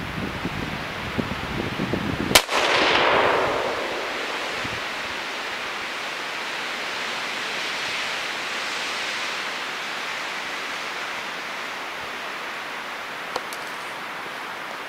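A single rifle shot about two seconds in, its report echoing and fading over the next second and a half. Low rumble on the microphone comes before it and a steady hiss follows.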